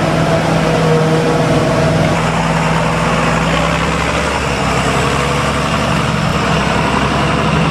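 Diesel engines of a forage harvester and its tractor and wagon running steadily while chopping maize, a constant heavy machinery hum whose note shifts about two seconds in.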